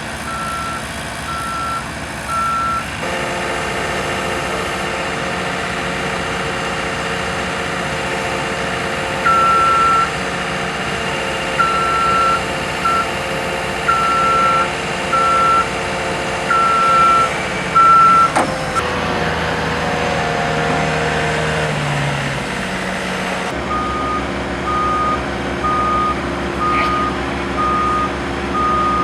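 Skid steer engine running while its reversing alarm beeps in irregular runs as the machine backs up. There is a sharp knock about 18 seconds in, and about 23 seconds in a slightly lower-pitched backup alarm starts beeping at an even pace.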